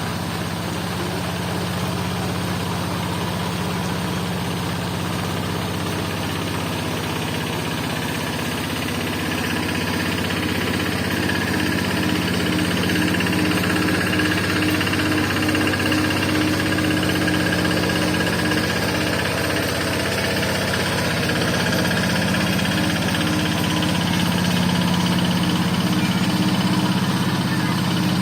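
An engine running steadily at a low, even pitch, growing louder in the second half, over the steady hiss of falling rain.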